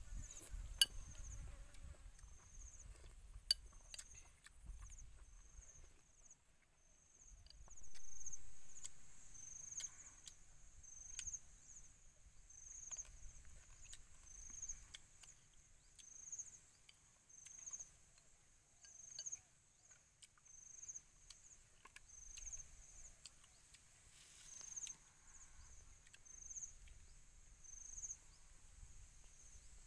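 An insect, cricket-like, chirping faintly in short high-pitched chirps a little over once a second. A few sharp clicks come in the first few seconds, and a low rumble swells up about eight seconds in.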